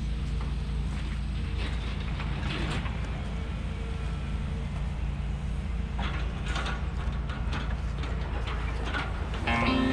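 Heavy demolition machinery engine running steadily, with scattered clanks and scrapes of rubble and steel being handled. Guitar music comes in near the end.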